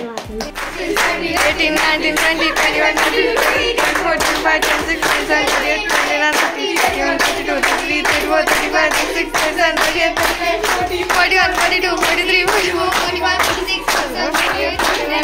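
A group of people clapping in a steady rhythm while singing together.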